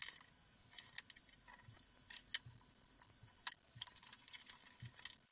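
Scattered light clicks and taps of a small plastic device housing and its covers being handled, at irregular spacing, the sharpest a little over two seconds in.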